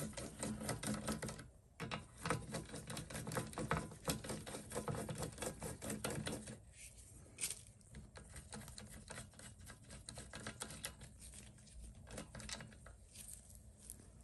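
Socket ratchet clicking in quick runs as 10 mm bolts are backed out of the carburetor and air-filter housing of a two-stroke hedge trimmer; the bolts are not tight. The clicks thin out about halfway through.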